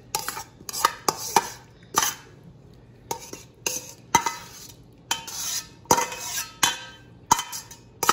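Metal spoon scraping and clinking against a stainless steel mixing bowl as marinated carrot slices are spooned out into a glass bowl: repeated sharp clinks, about two a second, with short scraping strokes between them.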